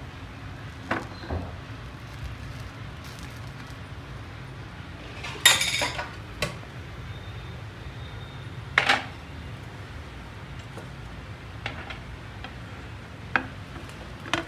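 A flat spatula scraping and knocking against a griddle pan as a chilla is folded and rolled in it: a few separate clinks and short scrapes, the loudest about five and a half seconds in, over a steady low hum.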